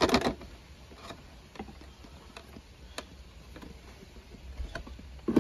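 Motor oil pouring from a plastic quart bottle through a makeshift plastic funnel into the engine's oil filler: faint, irregular clicks and glugs, with a louder burst of sound at the very start and again near the end.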